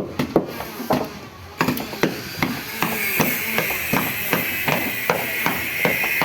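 Hammer blows on a wooden boat hull under repair: a few spaced strikes, then a steady run of about three to four strikes a second.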